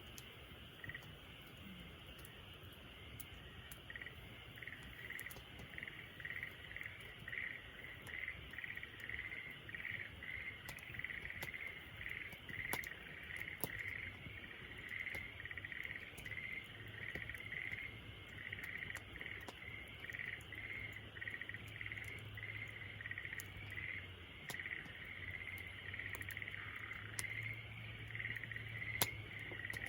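Crickets chirping in a steady repeating rhythm, about two chirps a second, starting about a second in, over sparse crackles and pops from a wood fire, one louder pop near the end.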